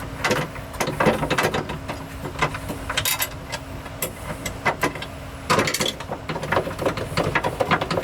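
Ratchet wrench clicking as bolts are loosened, mixed with irregular knocks and clanks of metal tools and parts.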